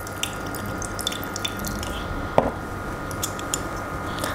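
Lemon juice trickling and dripping into a glass as a lemon half is pressed in a hand-held stainless steel lemon squeezer. There are small ticks throughout and one sharper knock about two and a half seconds in, over a steady background hum.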